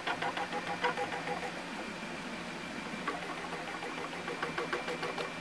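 Stepper motors of a programmable pattern tacker's X-Y feed ticking rapidly as the clamp steps backward through the stitch pattern. There is a short lull about two seconds in, then the ticking picks up again, over a faint steady machine hum.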